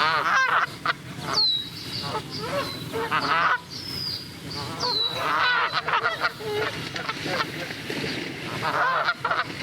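Canada geese honking repeatedly, several birds calling over one another in a busy run of honks. A few short high whistles falling in pitch sound through it now and then.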